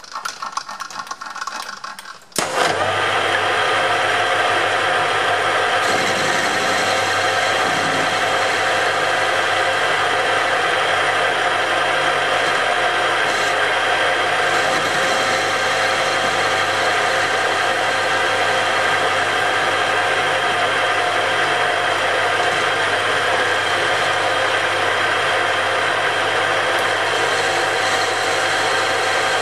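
Metal lathe starting about two and a half seconds in, after a few faint clicks, then running steadily with a hum and several fixed tones from its motor and gearing, while a light cleanup cut is turned along the outside of a steel workpiece.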